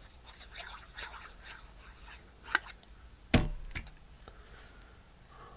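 Quiet handling while gluing paper: a plastic glue bottle squeezed and a paper circle pressed down, with faint rustles and ticks. Two sharp knocks come about two and a half and three and a half seconds in, the second the loudest.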